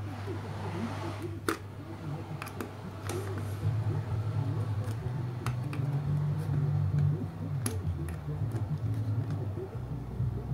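Light sharp clicks and taps, about half a dozen spread over several seconds, from tools and parts being handled, over a steady low hum.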